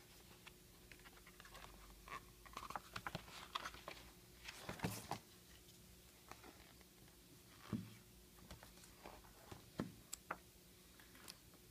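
Hands handling old books and printed sheets: scattered paper rustles and light taps, with a longer rustle about five seconds in and soft knocks near eight and ten seconds.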